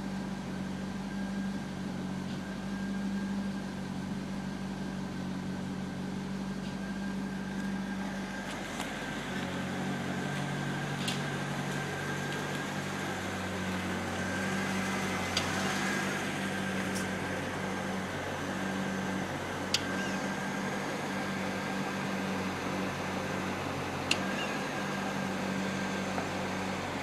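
C5 Corvette running with a steady low hum and a thin high whine, with a sharp click now and then. This is the strange noise that comes with the lights dimming.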